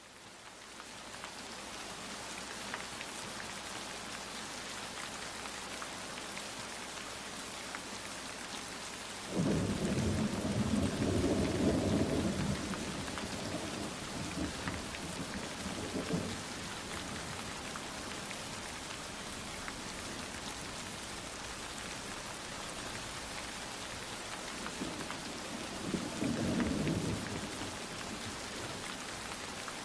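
Steady rain falling, fading in over the first couple of seconds, with rolling thunder. A sudden rumble breaks out about a third of the way in and lasts a few seconds, and a shorter roll follows near the end.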